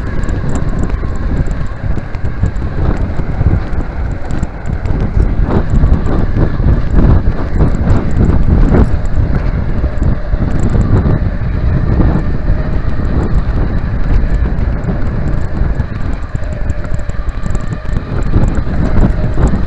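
Wind buffeting the microphone of a handlebar-mounted camera on a moving B'twin Rockrider ST100 mountain bike, with a steady low rumble and occasional short knocks from the ride over the paved path.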